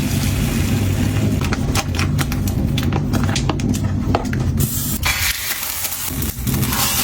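Kitchen cooking sounds over a steady low hum: a run of quick small clicks and taps, then a steady hiss that sets in about two-thirds of the way through.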